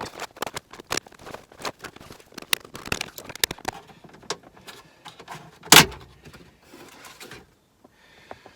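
VW Golf Mk5 plastic dashboard trim being levered up: a run of small clicks and creaks, then one loud snap a little past halfway as a clip lets go.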